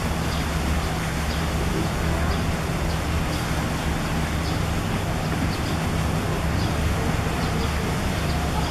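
Steady low hum under a constant rushing noise, with a few faint ticks. It does not change.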